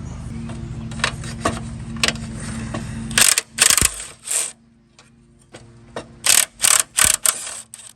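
Socket ratchet on an extension and swivel clicking through short strokes as the brake booster's 9/16 mounting nuts are worked: three quick ratcheting bursts a little after three seconds in, then five more near the end. A steady low hum underneath stops about three seconds in.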